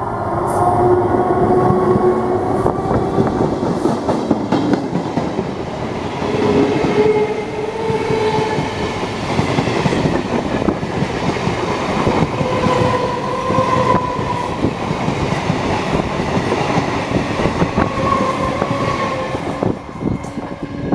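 Green Indian Railways EMU local train passing close by at speed, its wheels clattering steadily over the rail joints. Brief squealing tones rise and fade several times over the clatter.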